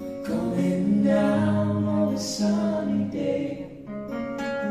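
Live acoustic folk-pop music: voices singing over acoustic guitars.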